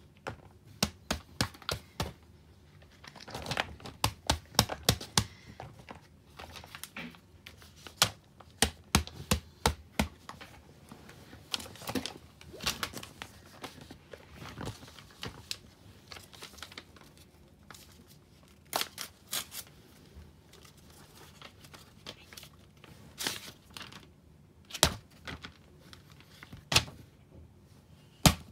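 Irregular taps, clicks and paper rustling from silicone pop-it fidget toys being handled, slid and set down on sheets of paper, busy in quick clusters during the first half and thinning to a few single louder knocks later.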